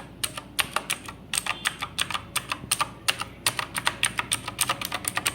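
Typing on an HP GK320 full-size mechanical keyboard: a quick, uneven run of sharp, clicky keystrokes, several a second, with a short lull about a second in.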